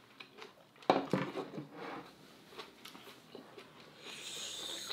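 Chopsticks and dishes clinking during a meal, with one sharp clack about a second in and a soft hiss near the end.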